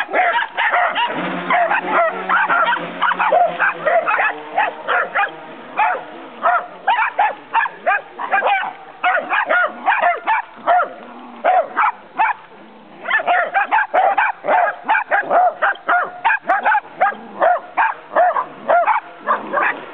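Dachshunds barking and yipping in quick, rapid-fire barks, with a short lull about twelve seconds in.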